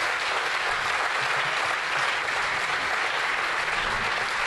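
A large seated audience clapping in steady applause.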